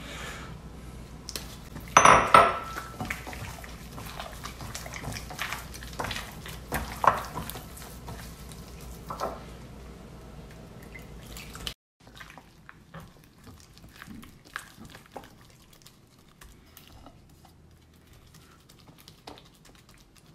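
Gloved hands squelching and kneading flour-coated chicken pieces in a wet batter in a glass bowl, with water poured in and small clinks against the glass. The loudest moment comes about two seconds in, and the sound is quieter in the second half.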